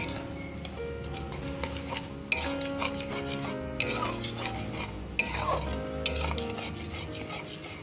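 Flat metal spatula stirring and scraping thick mung dal in a metal pan, in separate strokes about a second and a half apart, over soft background music.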